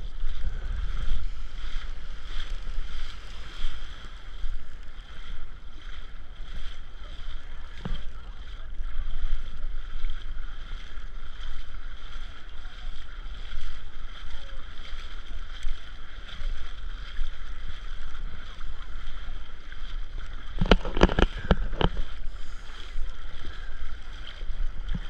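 Wind buffeting the microphone while someone wades through shallow sea water, with a few sharp splashes of legs kicking through the water a little after twenty seconds in.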